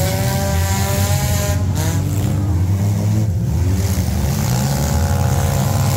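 Several stock compact derby cars' engines running and revving in the arena, a loud steady rumble with an engine note that rises and falls at the start and again near the end.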